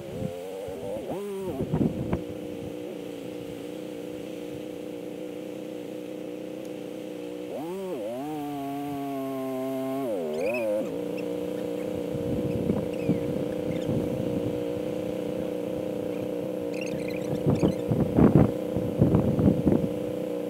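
Adventure motorcycle engine running with a steady note that rises and falls briefly about eight seconds in, with a few knocks near the end.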